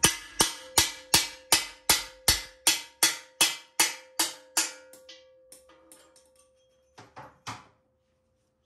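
Hammer blows on a driver, driving the old rear bushing out of a GM TH400 transmission's aluminium case: a steady run of sharp metallic strikes, about two and a half a second, each leaving a ringing tone. About five seconds in, the strikes turn to lighter, uneven taps, and two last blows come near the end.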